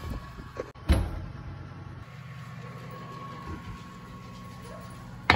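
A metal muffin tin going onto an oven rack, with one loud clunk about a second in, followed by a steady low hum.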